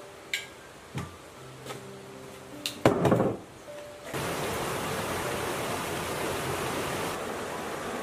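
A few knocks and then a heavy metal clunk as a submersible water pump is tipped over and laid down on a wooden table, followed about four seconds in by the steady rush of flowing stream water.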